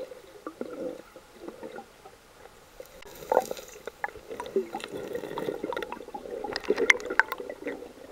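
Muffled underwater sloshing and gurgling around a submerged camera as a snorkeler moves, with scattered small clicks and knocks, sharpest about three seconds in and again around seven seconds.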